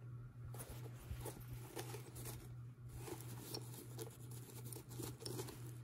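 Faint rustling, rubbing and small scraping clicks of hands handling a sneaker and pulling its foam insole out. A low steady hum runs underneath.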